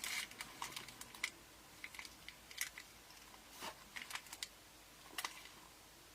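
Faint, irregular light clicks and taps as a small cardboard box and its paper contents are handled during unpacking.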